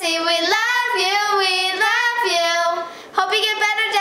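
Two young girls singing together without accompaniment, holding long notes, with a short break for breath about three seconds in.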